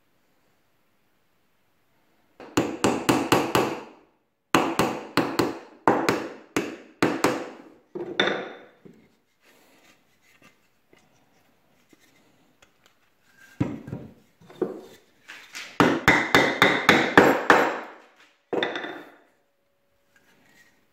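A hammer tapping wooden dowels into a glued pine joint, in quick runs of sharp blows with short pauses between. There are a few single blows a little past the middle, and a long rapid run near the end.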